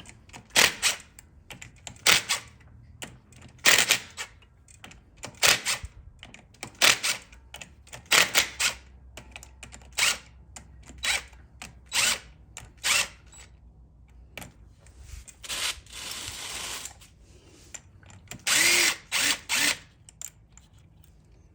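Hand socket ratchet being worked in repeated short strokes, each stroke a brief burst of pawl clicks about every second and a half, with a few longer runs of clicking near the end, as fasteners are backed off to remove the clutch basket.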